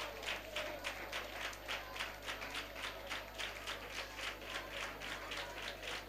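Congregation clapping faintly in a steady rhythm, about three claps a second.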